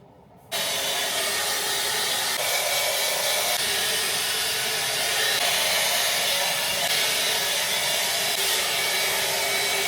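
An Agaro hair dryer brush is switched on about half a second in and runs with a steady, even blowing noise.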